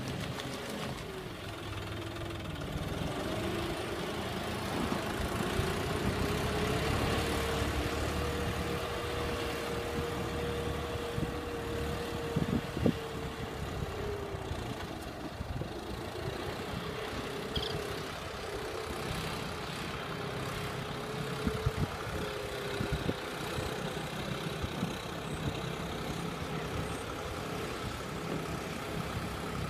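Diesel tractor engine running steadily under load while it pulls a disc plough through deep water, its pitch drifting slowly up and down. A few sharp knocks come near the middle and again about two-thirds of the way through.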